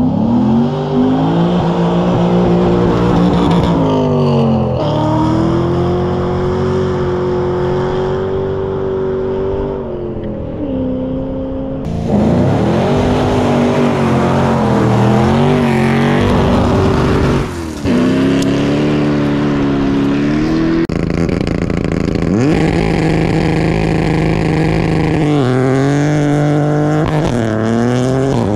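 Rally car engines revving hard on a gravel stage, the pitch climbing and falling again and again as the cars accelerate, shift and lift. The sound changes abruptly a few times.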